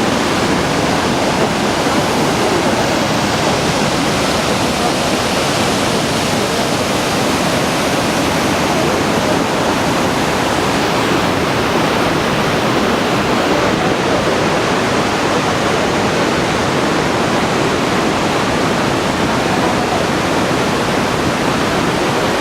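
Kegon Falls, a tall plunge waterfall, pouring in a steady, unbroken rush of water.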